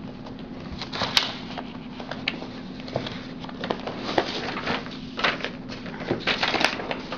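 Loose sheets of paper rustling and crackling as a hand leafs through and lifts a pile of handwriting practice sheets, in short irregular rustles with a steady low hum underneath.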